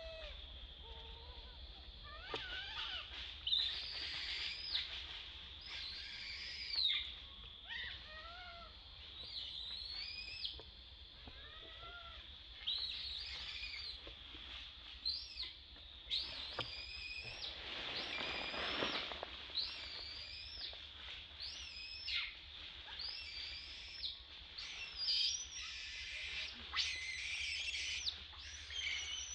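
Baby long-tailed macaque crying: shrill, arching high cries repeated about once a second over a steady high whine, with a burst of rustling around the middle.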